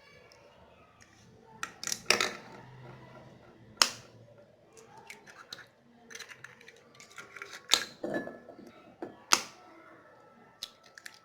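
Eggs cracked one after another on the rim of a bowl: four sharp cracks, with smaller clicks and taps of shell between them.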